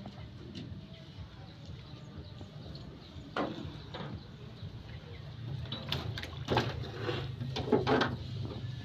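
Bare feet thudding and knocking on the planks of a small wooden boat as someone walks along it, a few scattered knocks at first, then a quicker cluster about two-thirds of the way in, over a steady low hum.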